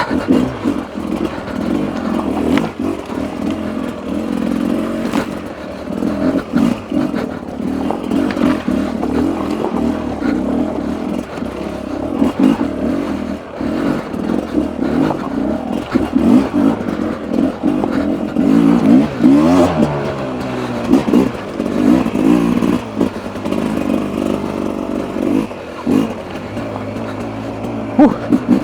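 A 2024 Beta RR 300 single-cylinder two-stroke enduro engine being ridden off-road, the revs rising and falling constantly with the throttle and sharp rev rises about two-thirds of the way in. Occasional short knocks come through over the engine.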